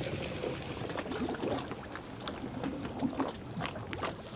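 Water sloshing and trickling around an aluminum boat hull and trailer as the boat is backed into the water at a launch, with scattered light knocks.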